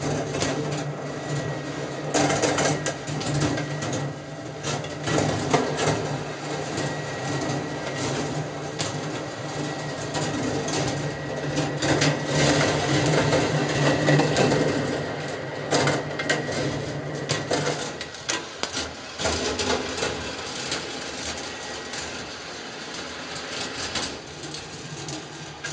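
Copper rolling ball sculpture running: balls roll and rattle along the copper tracks with frequent clicks and clatters. A steady low hum runs underneath and stops about three-quarters of the way through.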